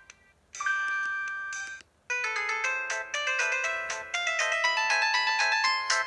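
Preloaded ringtones playing from a Huawei ETS3 phone's speaker, previewed one after another. One tone cuts off, a short chime is held for about a second, and after a brief gap a new melody of quick bell-like notes starts and keeps going.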